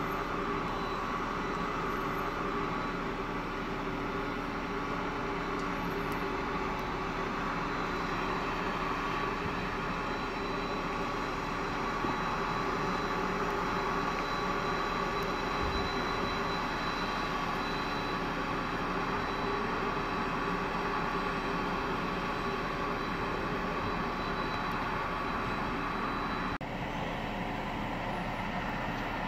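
Steady machine drone with a constant low hum and a thin high whine over it, unchanging throughout.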